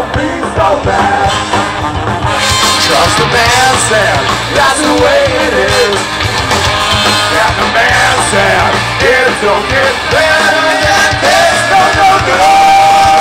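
Ska-punk band playing live and loud, with trumpet and trombone carrying the tune over electric guitars and drums, ending on a long held horn note.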